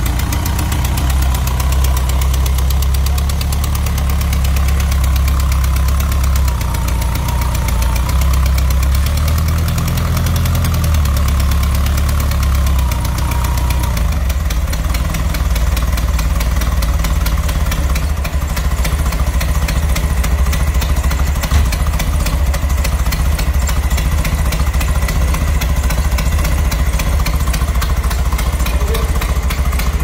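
1973 VW Super Beetle's air-cooled flat-four engine idling steadily with its belt-driven air-conditioning compressor running; the idle changes note about halfway through. The carburetor is known to be giving trouble.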